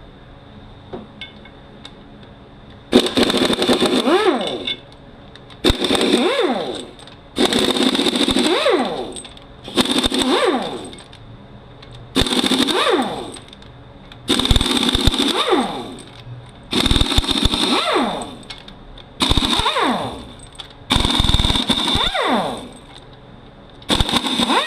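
Impact wrench running out the T45 Torx bell housing bolts on a Mercedes 722.9 transmission, one bolt at a time. About ten bursts of one to two seconds each, the tool's pitch rising as it spins up and falling as it stops, with short pauses between them.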